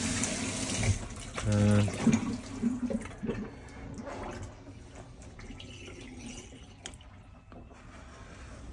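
Water running from a kitchen tap, shut off about a second in; then a person's brief murmur and a few faint clicks and knocks.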